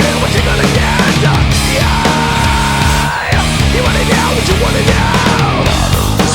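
Loud hard rock music.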